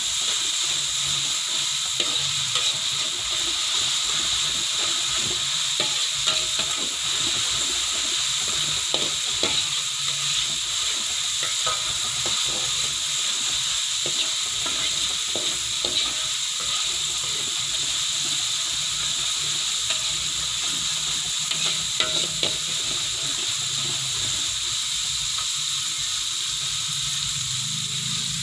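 Oil sizzling steadily in a wok as onion and green chili fry, stirred with a metal spatula that scrapes and clicks against the pan every few seconds.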